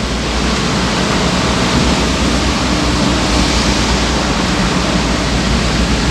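Heavy rain and road noise: a steady, even rush with a low hum underneath.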